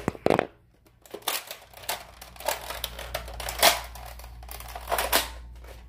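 Plastic clicks and clacks of a jammed Nerf blaster being worked by hand to clear it, about a half-dozen separate knocks.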